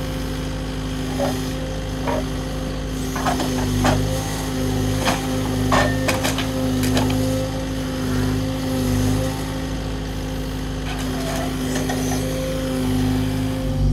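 Kubota excavator's diesel engine running steadily under hydraulic load, with scattered sharp knocks and clatters of stone and masonry as the claw pulls at a cottage wall, most of them in the first half and a couple more near the end.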